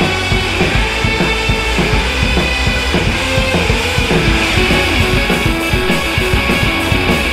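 Rock music with guitar and drums, steady and loud.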